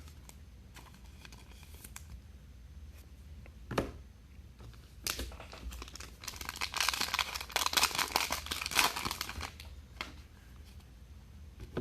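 Trading-card pack wrapper being crinkled and torn open: a few light clicks and taps, then a dense crinkling run of several seconds in the middle.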